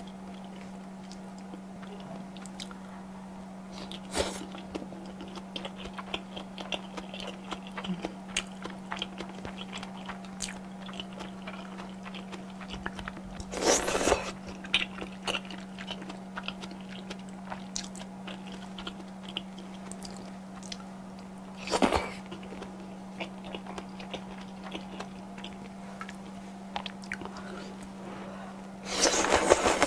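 Close-miked eating sounds: steady chewing with many small wet clicks and smacks, broken by three loud slurps of udon noodles, about halfway, about two-thirds through and at the end. A steady low hum runs underneath.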